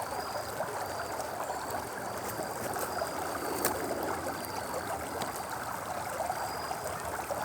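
Water of a small stream running steadily, with a gurgling flow. A faint, short, high chirp repeats about once a second over it.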